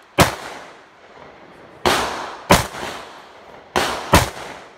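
Rifle shots fired from a shoulder-held semi-automatic rifle: five sharp reports with echoing tails, one near the start and then two quick pairs about half a second apart.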